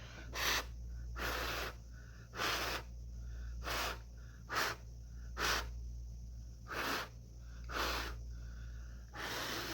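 A person blowing short puffs of breath by mouth onto wet acrylic paint to push it into waves and cells, about nine puffs. A steady low hum runs underneath.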